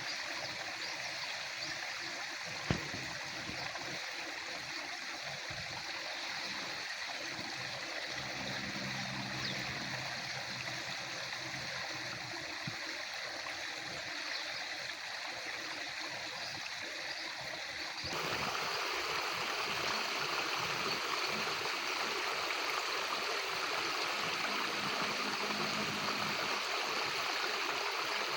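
Water flowing steadily, a continuous stream-like rush. A single sharp click comes about three seconds in, and the sound steps up suddenly in loudness about eighteen seconds in.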